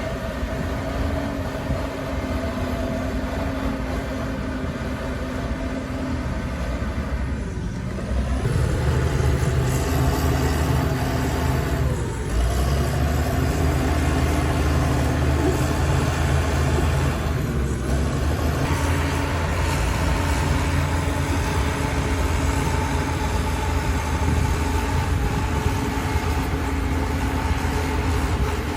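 Heavy diesel engine of earthmoving machinery running steadily. It gets louder and deeper about eight seconds in, with a few brief dips after that.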